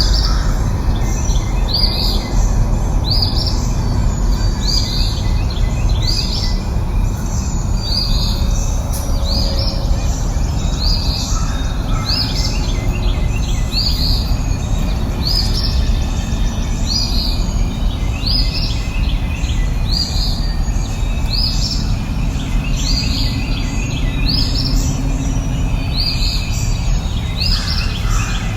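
A bird repeating a short, high, downward-sweeping call about once a second, over a steady low rumble of background noise.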